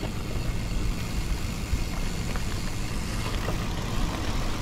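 Steady rumble of a moving vehicle on the road: engine and tyre noise, even throughout.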